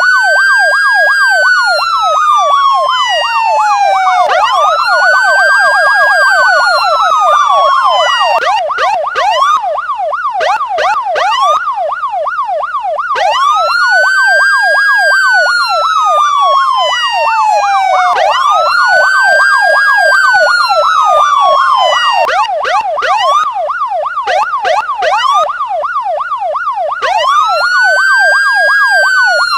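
Electronic police siren: a slow wail that rises quickly and falls off over about four seconds, layered over a fast yelp sweeping about four times a second. Twice the wail stops for a few seconds while a rapid warble runs on.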